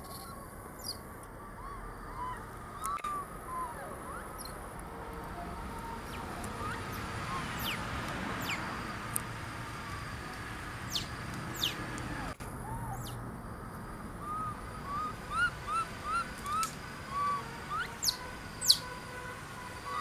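Baby macaque calling: repeated short, arched squeaky calls, scattered at first and then a quick run of them in the last few seconds. Thin high chirps and a steady forest background run underneath.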